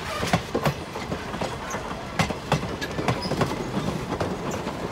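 Passenger coaches of a Strasburg Rail Road train rolling past, their steel wheels clicking and knocking on the rails in a quick, uneven run of sharp clicks over a steady rumble.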